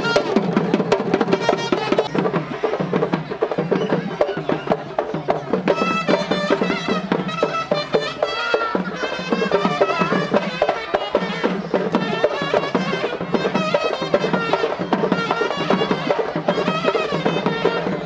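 Traditional South Indian temple festival music: a wavering, ornamented melody over a steady drone, with continuous drumming.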